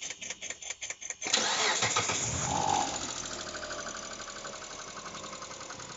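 Mitsubishi Pajero IV's 3.8-litre V6 cranked by the starter for about a second, then catching and settling to idle with a fast, even ticking from the valvetrain: the hydraulic lifters are knocking.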